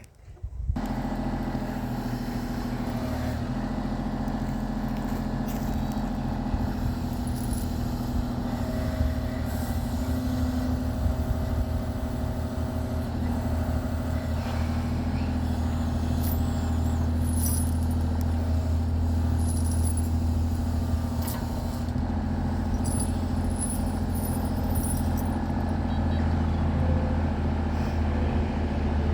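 An engine running steadily at an even speed, its pitch hardly changing.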